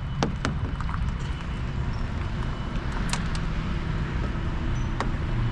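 A few sharp clicks and taps of hand tools on fish finder mounting bolts: two just after the start, two close together about three seconds in, one near the end. Under them runs a steady low rumble.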